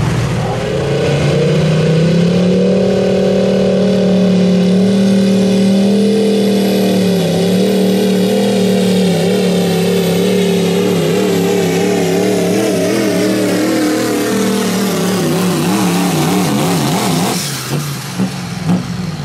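Turbocharged Chevrolet Silverado diesel pulling truck at full throttle dragging a pulling sled, engine held high with a high turbo whistle rising over it. The engine note wavers up and down through the pull, then the throttle is let off near the end.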